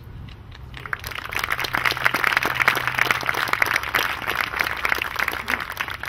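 Crowd applauding, a dense patter of clapping that builds about a second in and thins out near the end.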